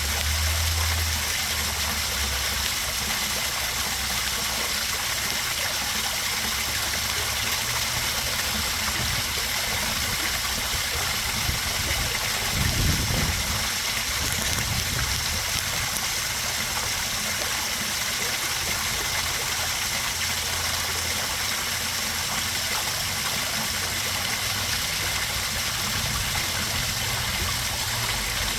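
Backyard koi pond waterfall, water splashing and trickling steadily, with a brief low rumble a little under halfway through.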